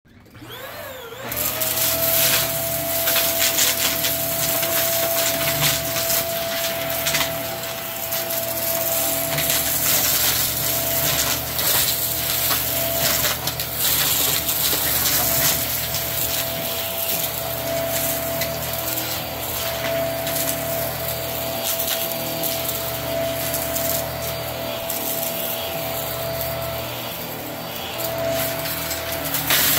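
Hart cordless stick vacuum switched on, its motor spinning up in the first second to a steady high whine, then running while it is pushed over carpet. Scattered clicks and rattles from debris hitting the head.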